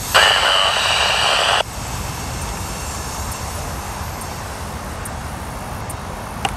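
A loud hissing roar with a steady high whine, which cuts off abruptly about a second and a half in. A steady low rumble follows.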